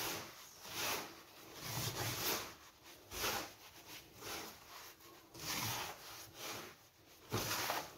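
Hands rubbing coarse semolina mixed with melted margarine and oil against a wooden bowl, a gritty swish roughly every second. This is the rubbing-in stage, working the fat through the grain so the semolina absorbs it for makrout dough.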